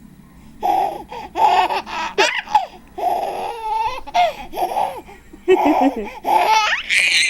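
Baby laughing in a run of short bursts, turning into higher squeals near the end.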